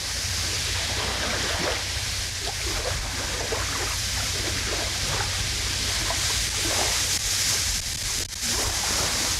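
Strong wind blowing over the microphone with a steady rumble and hiss, and waves lapping at the reservoir shore.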